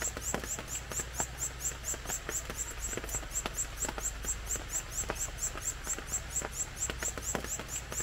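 Rapid, very regular high-pitched chirping, about five chirps a second, over scattered soft clicks and a low steady hum.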